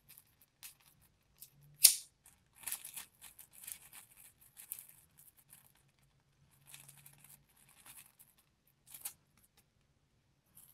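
Incense charcoal held in a lighter flame, sparking and sizzling in irregular crackly bursts as it catches light. There is a sharp snap about two seconds in. The sizzling is the sign that the coal is lit and ready.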